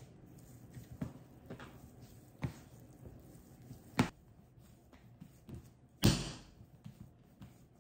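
Kitchen handling sounds while making cinnamon rolls: a few scattered light knocks, a sharp click about four seconds in, and a louder knock with a short rustling tail about six seconds in.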